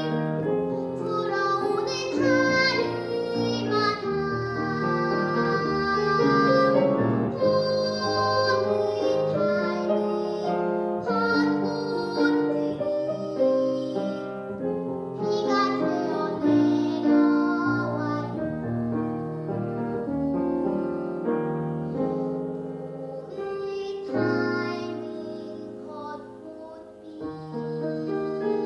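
A young girl singing a Korean children's song with instrumental accompaniment.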